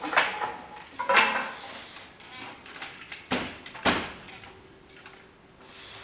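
Traditional Tai wooden handloom being worked: several sharp wooden knocks and clatters, with two strong knocks close together past the middle.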